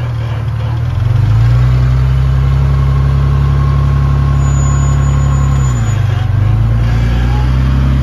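Rock crawler buggy's engine held at steady revs under load as it climbs a sandstone ledge. The revs drop briefly about six seconds in, then pick up again.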